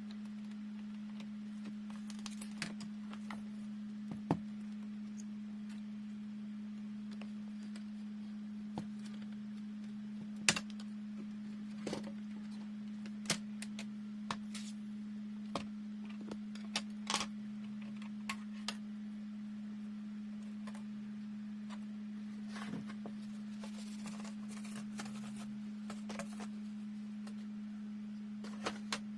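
Scattered small clicks and taps from laptop parts and tools being handled during a CPU swap. A steady low hum runs underneath.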